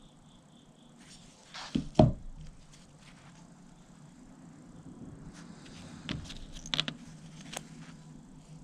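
Steel parts of a disassembled Plomb ratchet (handle, toothed gear, cover plate) knocking and clinking as they are handled and set down. There is a pair of sharp knocks about two seconds in, the louder second, and a few lighter clicks in the second half.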